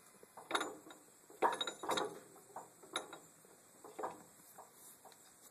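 Gears in an open Yanmar YM2000 tractor gearbox clicking and clinking as the wheels are turned by hand, about eight light clicks at uneven spacing.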